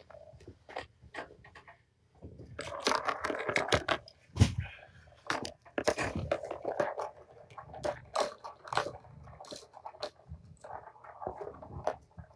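Rustling fabric and scattered light knocks and clicks as a person moves about on a blanket-covered floor handling a cloth, with one heavy thump about four and a half seconds in.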